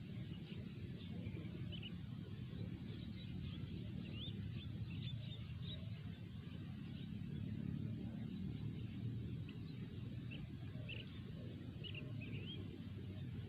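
Small birds chirping in short, scattered notes over a steady low rumble.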